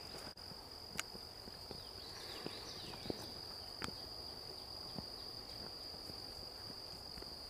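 Insect chorus: a steady, high-pitched drone held at one pitch, with a few light clicks scattered through it.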